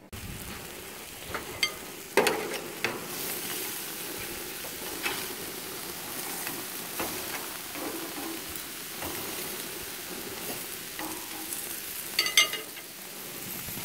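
Sirloin steaks sizzling steadily on a barbecue grill's grates, with sharp clicks of metal tongs against the meat and grate, the loudest about two seconds in and a quick cluster near the end.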